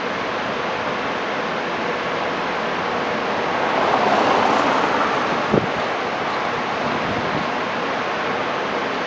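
Steady city street noise beside a stationary tram. It swells for a second or two about four seconds in, and a single sharp knock comes about five and a half seconds in.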